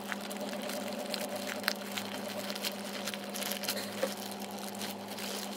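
Plastic courier mailer crinkling and rustling in short, scattered bursts as it is torn open by hand, over a steady low hum.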